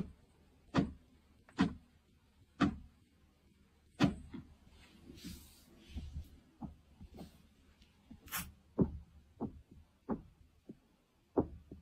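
Sharp taps made by a socked foot working inside a shoe, the kind of trick offered as a way to fake spirit knocking. The taps come about a second apart at first, then quicker and softer in the second half.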